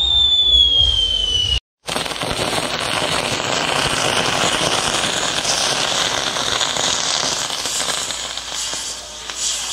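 A high firework whistle, one tone sliding slowly down, cut off about one and a half seconds in. Then the steady, dense crackle and hiss of fireworks burning on a castillo fireworks tower.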